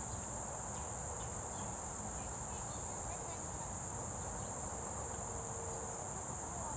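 Steady high-pitched chorus of insects trilling without a break, over a low rumble.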